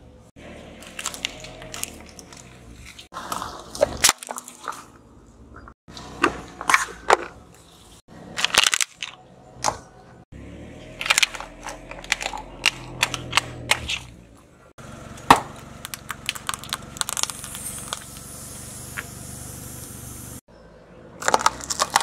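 A car tyre rolling over and crushing small brittle objects: clusters of sharp cracks, snaps and crunches, in short takes that cut off abruptly one after another. The loudest is a single sharp crack about fifteen seconds in.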